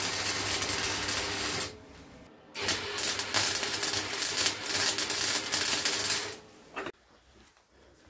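Electric arc welding on thin steel, laying a bead over spot welds: a steady crackling hiss with a low hum in two runs. The first stops a little under two seconds in, and the second starts about a second later and stops about six seconds in.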